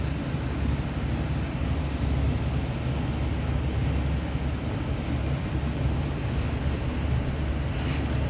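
A steady low mechanical drone, like a fan or air handler running, with a faint click near the end.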